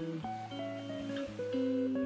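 Background instrumental music with guitar, a melody of changing notes over a held bass.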